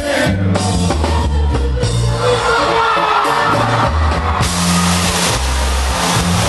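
A live band's music played loud through a PA, with a heavy bass line and drums.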